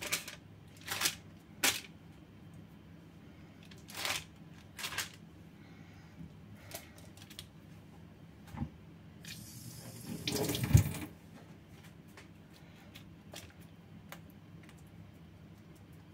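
Hands pressing and stretching soft, wet bread dough on baking parchment, with short rustles of the paper. About ten seconds in there is a louder rushing noise that ends in a single thump.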